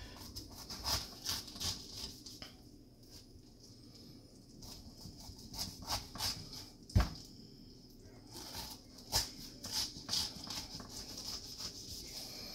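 A kitchen knife slicing through pineapple on a plastic cutting board: irregular crisp crunching and scraping strokes as the blade cuts out the hard core at an angle, with one sharp knock about seven seconds in.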